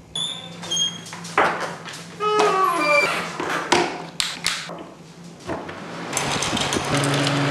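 Scattered clicks, knocks and brief squeaks of things being handled, then, about six seconds in, an electric fan plugged in and starting to run with a steady whoosh and a low hum.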